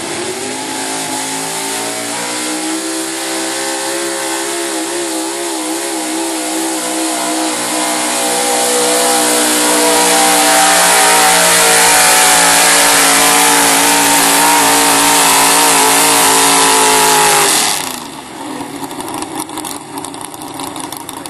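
Ford pulling truck's engine held at high revs under full load while dragging a weight-transfer sled, its pitch climbing over the first couple of seconds and then running steadily, loudest in the later part of the pull. About seventeen seconds in the throttle is cut and the engine drops at once to a lower, rough idle as the pull ends.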